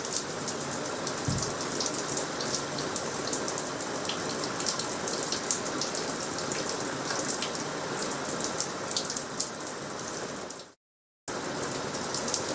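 Shower water running, a steady spray with fine splashing. It drops out abruptly for about half a second near the end, then resumes.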